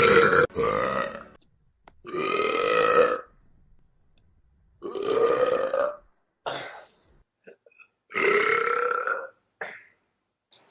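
A young man burping over and over: about five drawn-out burps of roughly a second each, a second or two apart, with a couple of short ones in between.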